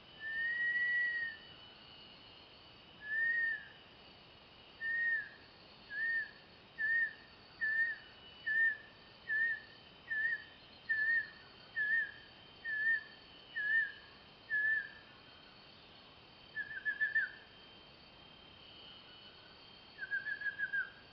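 Banded kingfisher's whistled song: a long drawn-out whistle, then a second shorter one. These are followed by a run of about a dozen short whistles less than a second apart, and two quick stuttering trills near the end. A steady faint high insect drone runs underneath.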